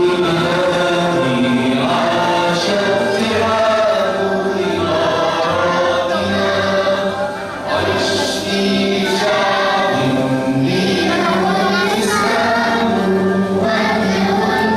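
A choir of many voices singing a song together, with long held notes.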